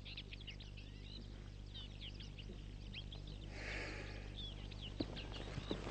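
Many small birds chirping in quick, high calls over a low steady hum. A brief soft hiss comes a little past halfway, and a few soft knocks come near the end.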